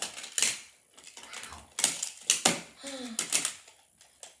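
Plastic magnetic building blocks clicking together as they are handled and snapped into place: a handful of sharp, separate clicks.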